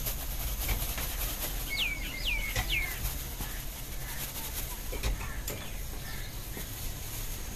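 A bird calls three times in quick succession about two seconds in, each note a short whistle sliding downward, over a steady low rumble.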